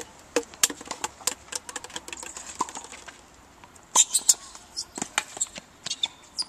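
Tennis rally on a hard court: a string of sharp knocks from racket strikes, ball bounces and the players' shoes, with the loudest cluster of hits about four seconds in.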